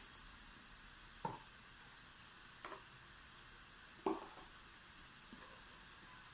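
Quiet eating sounds: three soft clicks or smacks about a second and a half apart, with a couple of fainter ones later, over a faint steady hiss.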